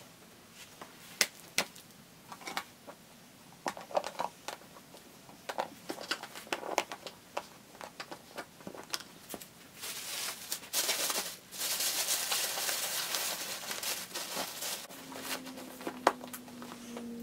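Hands handling a cardboard gift box and a folded hoodie: small taps and rustles. About ten seconds in, a louder rasping noise in two long stretches with a short break, the sound of clear adhesive tape being pulled off its roll to seal the box.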